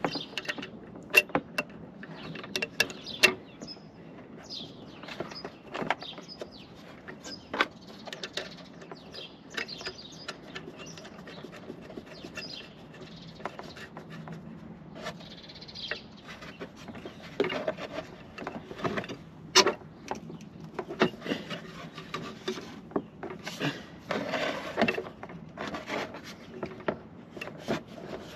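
Irregular clicks, clinks and knocks of hand work on metal car parts: horn brackets and fixings being handled and fitted. A few sharper taps stand out, about a second in, about three seconds in and near twenty seconds in.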